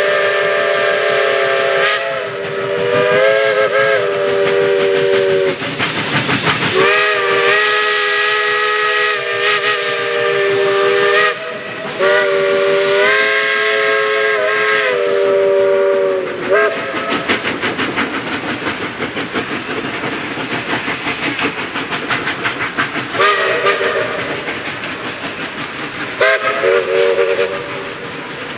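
A narrow-gauge steam locomotive's chime whistle blows three long blasts, its chord bending slightly in pitch. The train then runs with rapid, even beats, and the whistle gives two shorter blasts near the end.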